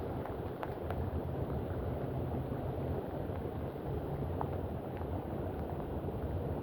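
Gusty wind rumbling on the microphone outdoors: a steady low noise with a few faint clicks.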